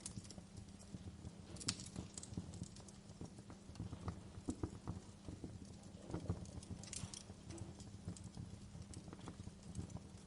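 Wood campfire burning, with irregular crackles and sharp pops over a steady low rumble of the flames; the loudest pops come about two seconds in and again around six seconds in.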